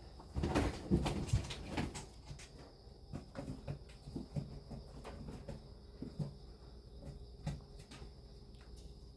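A string of light knocks and clatters like objects being handled or set down. The loudest cluster comes in the first two seconds, with scattered lighter knocks after it, over a steady low hum.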